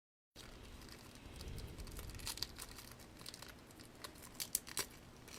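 Plastic packaging crinkling and rustling as it is handled, with scattered sharp crackles, the loudest a couple near the end. It cuts in abruptly just after the start.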